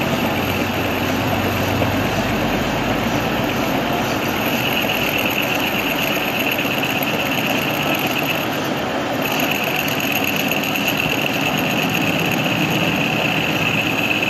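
Metal lathe running while a carbide insert tool turns a hard steel shaft, a steady machining noise. A high steady cutting tone comes in about four and a half seconds in, breaks off briefly near nine seconds, then resumes.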